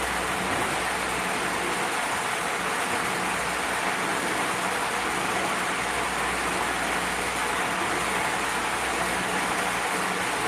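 Steady rushing background noise, even throughout, with a faint low hum underneath.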